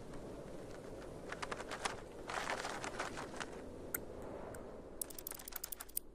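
Soundtrack of a hand-drawn cartoon: a steady soft hiss like wintry wind, with scattered crackling clicks and a quick run of light ticks about five seconds in.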